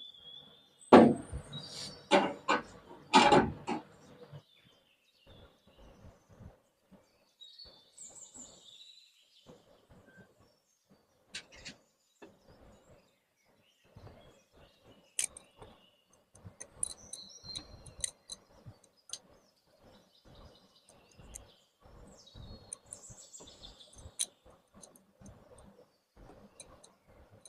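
A burst of loud knocking and clattering about a second in, lasting a few seconds, then scattered light clicks and knocks. Birds chirp on and off throughout.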